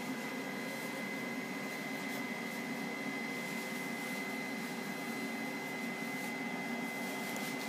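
Tefal ActiFry 2in1 YV9601 air fryer running while it cooks chips: its hot-air fan and stirring-paddle motor make a steady whir, with a thin high whine over it.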